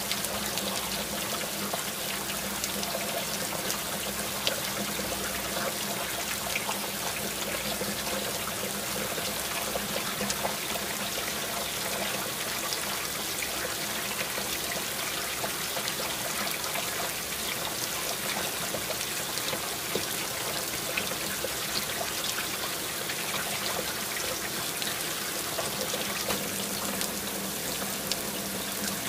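Running water splashing steadily, a continuous rush with no pauses.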